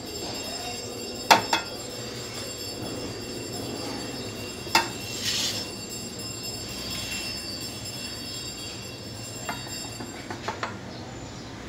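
A spatula scraping soft vermicelli mixture out of an aluminium pot into a glass dish. The pot and dish clink sharply twice early on and once near the middle, with a brief scrape after it and a few light ticks near the end.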